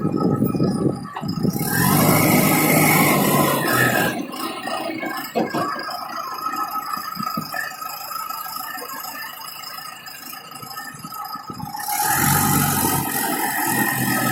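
Engine of a 3.5 m3 self-loading concrete mixer truck running with a rattle. It is loud at the start and again near the end, and quieter from about four seconds in until about twelve seconds in.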